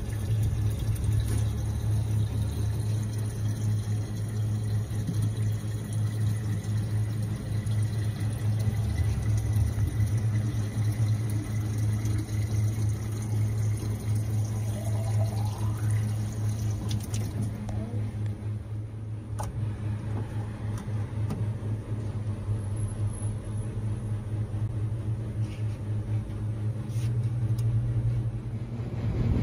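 Water from a vending machine's spout pouring steadily into a five-gallon plastic jug, over a steady low hum from the machine.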